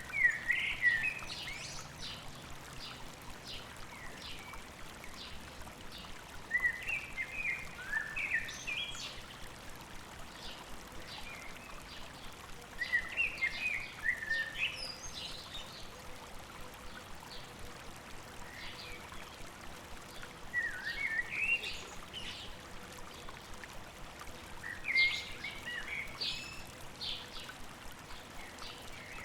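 A songbird singing short, quick chirping phrases that repeat roughly every five to six seconds, over the steady rush of a flowing stream.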